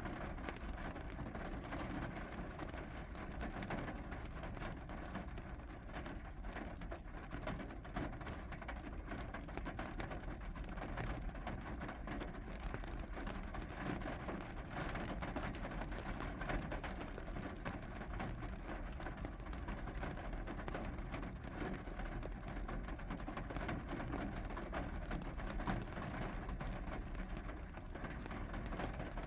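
Steady rain falling, a continuous patter of countless small drop ticks over an even hiss.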